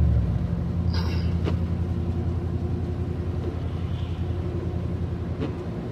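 Dodge Ram 1500 pickup driving on a snowy road, heard from inside the cab: a steady low drone of engine and tyre noise, with a few faint clicks.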